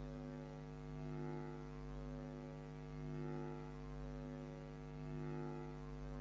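Steady electrical hum with many overtones, swelling and easing gently about every two seconds.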